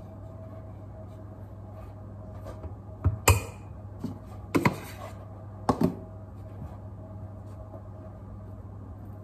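Kitchen clatter: a knife and dishes knocking on a countertop in three short bursts about a second apart, over a steady low hum.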